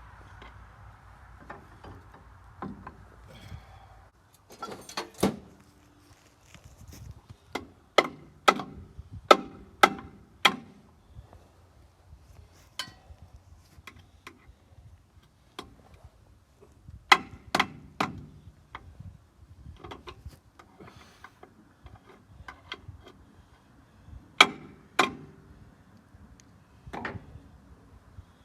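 Irregular metal clanks and knocks with brief ringing, some in quick runs of four or five, from steel parts of a crawler's blade rigging being handled and worked. A steady hum stops about four seconds in.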